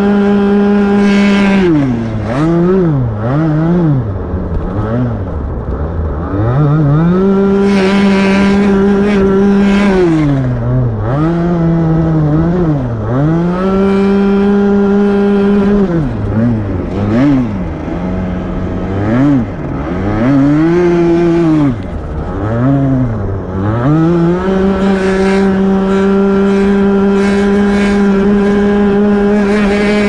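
Rotax Max 125 cc two-stroke kart engine heard onboard at full throttle, holding a steady high pitch on the straights. The revs drop and climb back several times through corners, from about 2 to 7 seconds, around 10 to 14 seconds, and from about 16 to 24 seconds, before holding high again.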